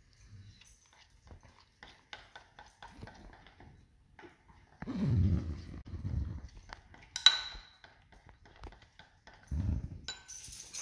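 A metal spoon stirring frosting and clicking against a small ceramic bowl, with one sharp ringing clink about seven seconds in. Two low, muffled sounds come about five seconds in and again near the end.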